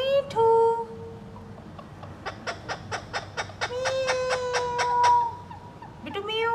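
Ringneck parrot vocalising: a rising squawk, then a held whistled note. A fast run of clicks follows, about five a second, with a long steady whistle over its second half. Another rising squawk comes near the end.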